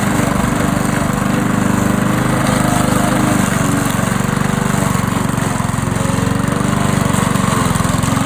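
Petrol walk-behind lawn mower engine running steadily while mowing grass with the deck set low.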